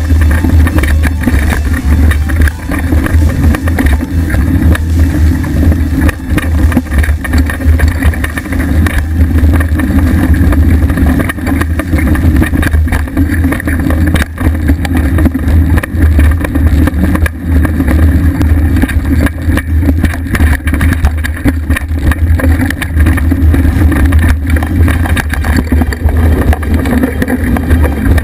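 Mountain bike riding fast over a dirt trail, heard through a camera mounted on the bike: a loud, steady low rumble of wind on the microphone and tyre noise, with constant rattling and knocking from the bike over bumps.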